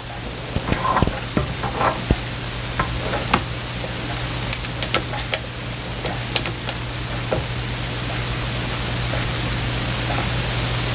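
A metal spoon scraping and clinking against a stand mixer's flat beater and stainless steel bowl as sticky divinity candy is cleaned off the beater. The clicks and scrapes are irregular and come mostly in the first seven seconds, over a steady hiss and low hum.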